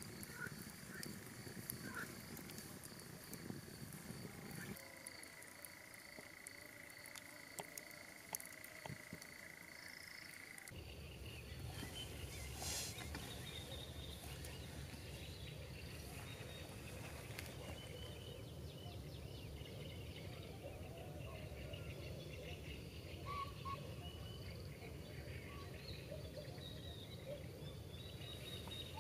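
A campfire crackles with scattered sharp pops over a steady high insect trill. A second steady insect tone comes in about five seconds in. About ten seconds in the sound changes to scattered bird chirps over a low steady open-air rumble.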